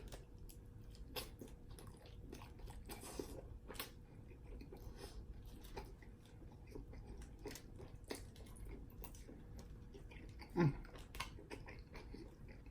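Close-miked chewing and mouth sounds, many soft wet clicks as food is bitten and chewed. About ten and a half seconds in comes a short hummed 'mm'.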